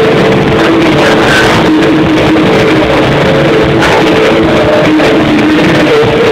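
Live rock band playing electric guitar over drums, recorded loud and rough from within the audience.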